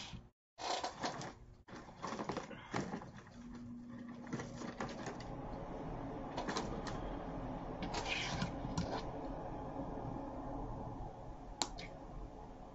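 Handling noises of crafting: rustling and tapping of deco mesh and artificial greenery on a cutting mat, with a few sharp clicks. Near the end, wire cutters snip a boxwood stem with one loud click.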